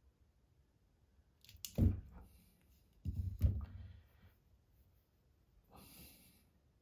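Hand ratcheting crimping tool clicking as it crimps a terminal onto a thermostat wire: a sharp click about two seconds in, then two more about half a second apart around three seconds in, with a brief rustle of handling near the end.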